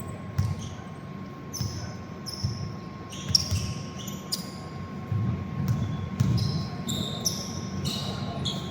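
Basketball game on an indoor court: a ball dribbling, with repeated short high sneaker squeaks on the floor, over the low murmur of a large hall.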